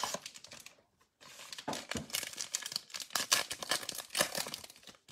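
Football trading card pack's wrapper being torn open and crinkled by hand: after a brief rustle and a short pause, a dense run of sharp crackles.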